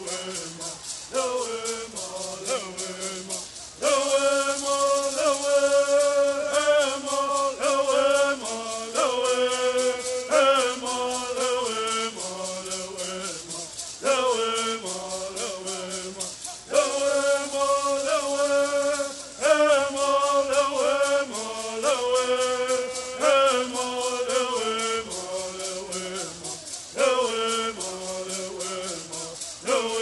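Bird songs: a group of men singing in unison while shaking gourd rattles in a fast, steady beat. Each new phrase comes in louder every few seconds.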